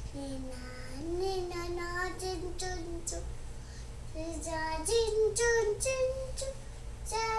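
A toddler singing wordless, drawn-out notes in imitation of opera. One long held note, then, after a short break, a run of higher notes.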